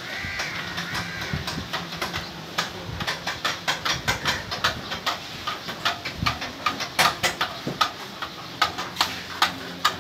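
Irregular clinks and knocks of a metal utensil against a steel griddle and cookware, several a second and sharpest about seven seconds in, over a steady low hum.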